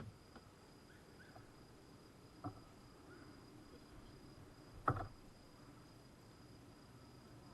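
Wood campfire crackling, with a few sharp pops, the loudest about five seconds in, over a steady high-pitched insect trill.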